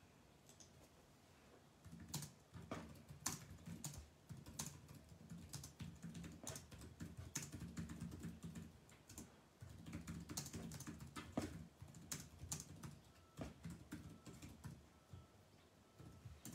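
Faint typing: irregular clicks, several a second, starting about two seconds in and dying away near the end, over a low rumble.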